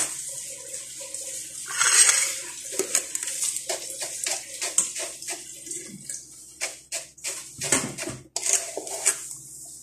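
Granulated sugar scooped with a cup and poured, a hissing pour about two seconds in, then a run of light scrapes and taps of the cup against a stainless steel bowl.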